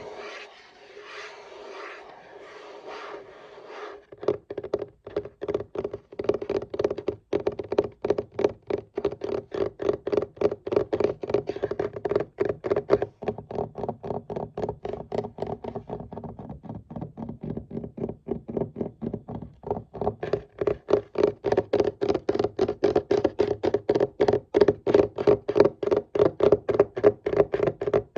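Scratching on a desk surface for a few seconds, then rapid tapping on the desk, a fast steady run of knocks about four or five a second that briefly thins out and picks up again.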